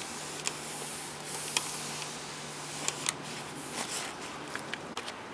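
Paper towel wiping and rustling across an LCD monitor screen, with scattered light clicks and taps.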